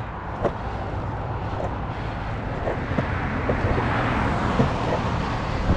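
Sector 9 longboard wheels rolling over a concrete sidewalk, with a light click roughly once a second as they cross the slab joints. A car passes on the road alongside, swelling about four seconds in.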